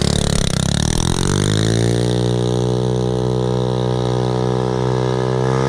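ATV engine revving up over about two seconds and then held at high revs, running steadily.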